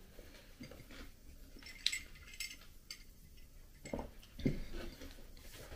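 Quiet eating of a crisp nut meringue: a few faint crunches and small clicks, then two soft low knocks near the end.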